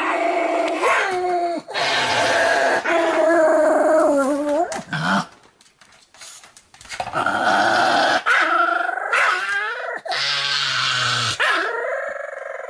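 Pomeranian snoring in its sleep: long, drawn-out pitched snores that waver in pitch, with a pause of about a second and a half near the middle.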